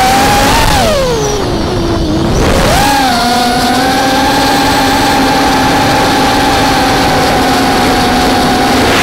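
Vortex 250 FPV racing quadcopter's brushless motors and propellers whining over a rush of wind on the onboard microphone. The pitch drops as the throttle comes off about a second in, climbs back near three seconds, and then holds steady.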